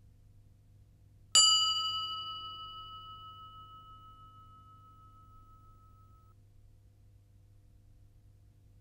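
A single bell-like ding sound effect, struck once about a second and a half in, ringing out and slowly fading over about five seconds, the higher overtones dying away first.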